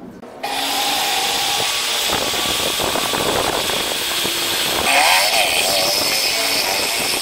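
Bench drill press's 710-watt brushed motor switching on about half a second in and running loud and steady while a 10 mm twist drill bores into a steel bar held in a vise. A wavering squeal comes in about five seconds in.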